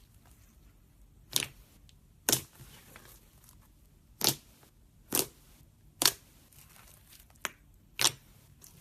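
Slime squeezed and worked by hand, giving short, sharp pops, seven of them at uneven intervals of about one second.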